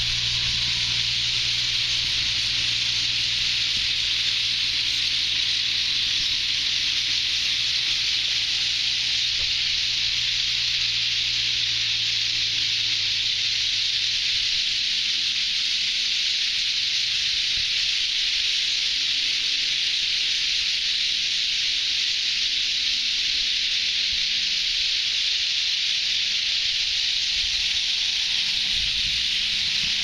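A huge flock of starlings calling all at once, a dense, steady, high-pitched din of chatter. A low steady hum runs underneath for the first half and fades out about halfway through.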